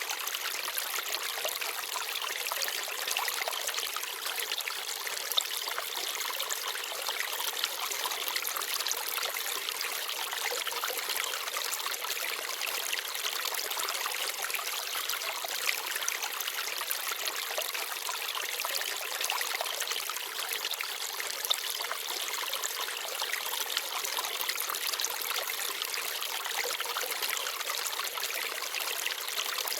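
Small forest stream babbling and trickling steadily over stones, with a few brief louder splashes.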